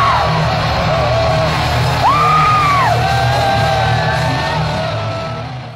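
Live heavy metal concert in a large indoor arena: a huge crowd singing, whooping and yelling along over the band, with one long held note about two seconds in. The sound fades out near the end.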